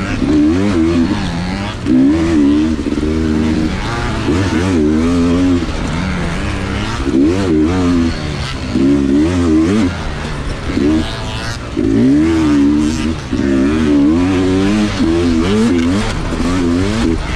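Sherco SE300 two-stroke dirt bike engine being ridden hard, revving up and down over and over as the throttle is worked, its pitch rising and falling every second or so.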